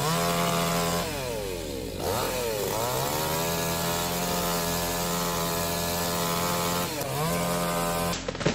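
Chainsaw running at full throttle. It eases off about a second in and revs back up, holds a steady high note, dips briefly again near the end and then stops.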